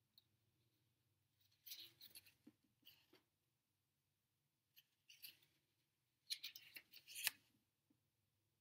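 Paper rustling and crinkling as a folded instruction leaflet is unfolded and handled in latex-gloved hands, in several short bursts, the longest and loudest near the end.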